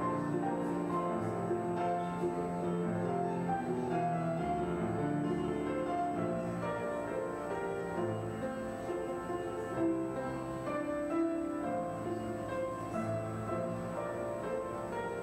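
Slow keyboard music with long held chords that change every second or two.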